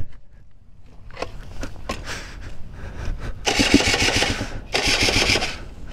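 The flooded two-stroke engine of a KTM 300 supermoto being cranked over twice, about a second each time, with a rasping sound and no catch; the rider suspects the carburettor sucked in water. A few light knocks come first.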